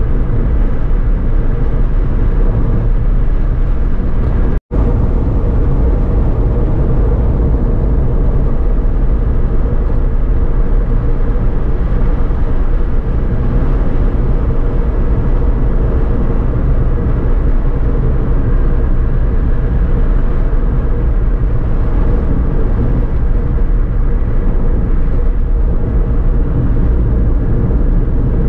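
Steady road and engine noise inside a moving Suzuki Alto at cruising speed: a low tyre rumble with an even engine drone. The sound cuts out for an instant about five seconds in.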